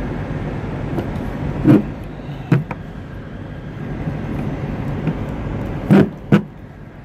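Steady low diesel truck engine rumble, broken by two pairs of sharp clanks: one pair a little under two seconds in, the other near the end.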